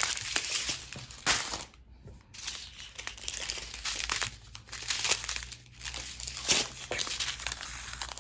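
Small plastic bags of diamond-painting drills being handled and sorted, crinkling in irregular bursts with a few sharper crackles.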